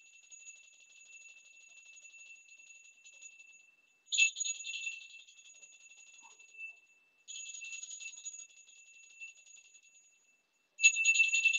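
Puja hand bell rung rapidly in short bouts, its high ringing tone sustained between them. The strongest bouts come about four seconds in and again near the end.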